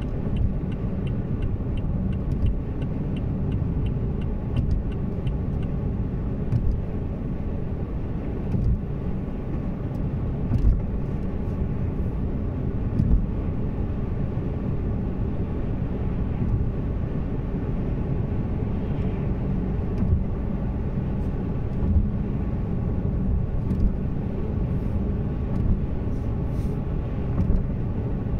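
Haval Jolion crossover on the move: steady low engine and road rumble, with a few brief bumps along the way.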